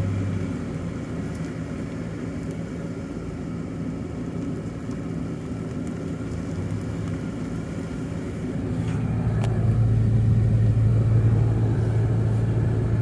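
A car driving slowly, its engine and road noise a steady low hum that grows louder about nine seconds in.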